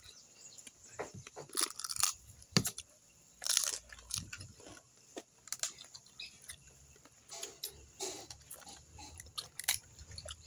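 A person eating crab close to the microphone: crab shell cracking and crunching, with chewing in between, in uneven bursts of sharp cracks.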